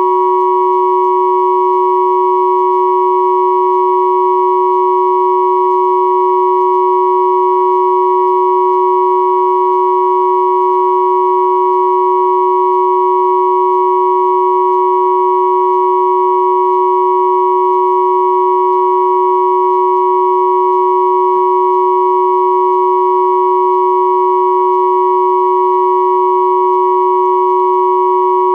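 Synthesized pure tones at 369, 963 and 1111 Hz sounding together as one steady, unchanging chord, with faint overtones above.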